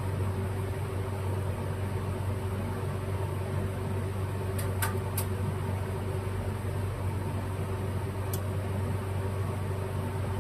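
Steady low machine hum, like a running fan or air handler. Over it come three light clicks in quick succession about halfway through and one more near the end, as small carburetor parts are handled.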